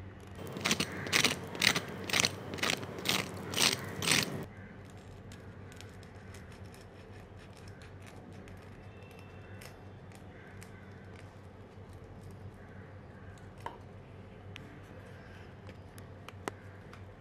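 Knife sawing through the crisp, crumb-coated crust of a fried chicken roll: about nine crunchy rasping strokes, roughly two a second, that stop after about four seconds, followed by only faint small crackles.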